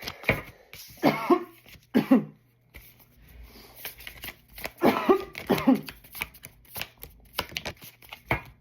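A person coughing in two bouts, a pair of coughs about a second in and another pair around five seconds in, with the soft clicks of tarot cards being shuffled between them.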